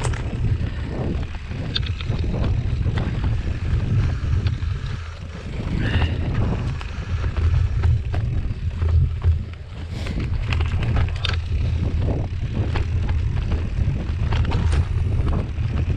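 Wind buffeting the camera microphone as a mountain bike rides fast down a dirt forest trail, with the bike rattling and clattering over roots and bumps.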